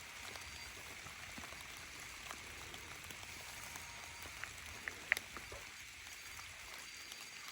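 Light rain falling in a steady hiss, with a few faint sharp ticks; the loudest comes about five seconds in.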